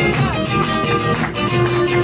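Argentine folk music: an instrumental passage with acoustic guitar playing.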